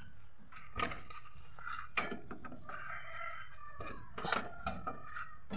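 A rooster crowing faintly, with a few light knocks along the way.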